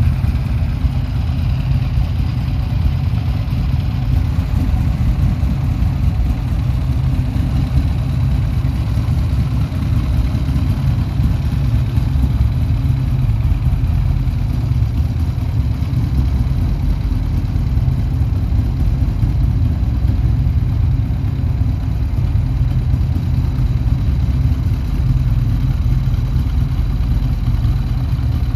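Buell X1's air-cooled 1203 cc V-twin idling steadily through a Vance & Hines exhaust.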